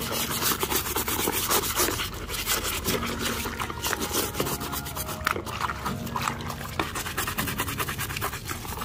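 Brush scrubbing a plastic toy bus: rapid, continuous rasping strokes.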